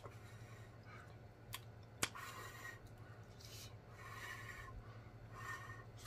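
Faint close-miked mouth sounds of someone eating hot spaghetti: chewing, with short soft breaths out through pursed lips, the food still too hot. Two sharp clicks come about a second and a half and two seconds in.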